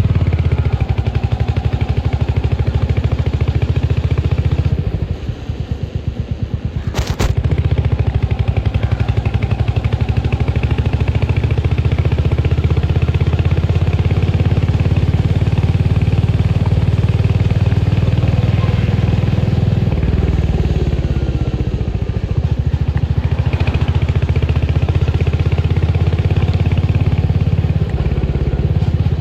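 Royal Enfield Hunter 350's single-cylinder engine running under way, its exhaust thumping in a steady pulse. The engine eases off for a couple of seconds about five seconds in, a sharp click comes about seven seconds in, and then it pulls again.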